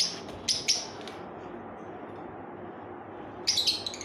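Caged lovebirds chirping: a few short, high calls near the start, then a quick burst of calls near the end, over steady background noise.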